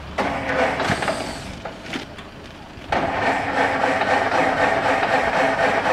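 A motor running with a dense, even mechanical whir. It starts suddenly, stops about two seconds in, then starts again a second later and runs steadily.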